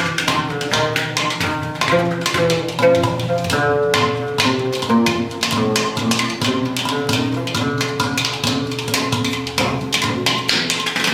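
Music: fast percussion with a stepping melodic line of pitched notes.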